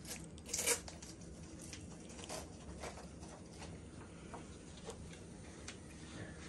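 Scattered light taps and clicks from a dog, booties on its back feet, shifting on a tile floor. A louder brief rustle comes about half a second in.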